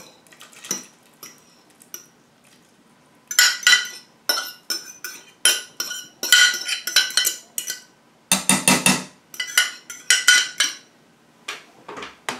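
A metal spoon or fork scraping and clinking against a dish, most likely transferring leftover stock for the gravy. It starts about three seconds in and goes in quick runs of short strokes, loudest near two-thirds of the way through.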